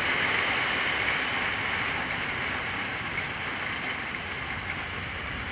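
Rain falling steadily, an even hiss that fades a little toward the end.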